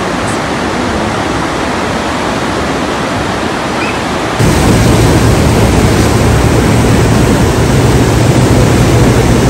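Floodwater rushing down a swollen river, a steady loud rush of water. About four and a half seconds in it cuts abruptly to a louder, deeper rush of flooding water.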